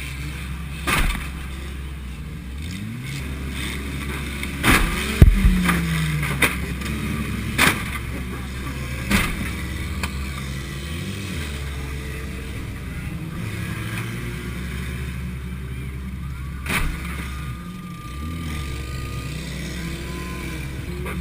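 A 1987 Honda Accord's four-cylinder engine running hard, revving up and down over a steady low drone, broken by a series of sharp crashes from demolition derby hits, the loudest about five seconds in and a last one near seventeen seconds.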